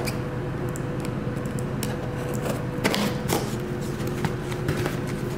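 A box cutter slicing the tape on a cardboard shipping box, then the box being pulled open with a few sharp cardboard scrapes and knocks, over a steady low hum.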